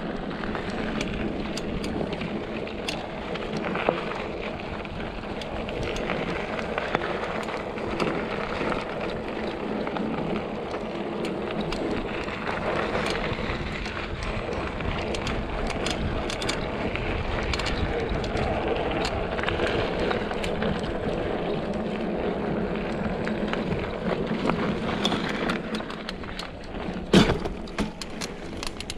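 Mountain bike ridden over a dirt trail: a steady rush of tyres on dirt and a low rumble, with frequent rattling clicks from the bike over bumps and a sharper knock near the end.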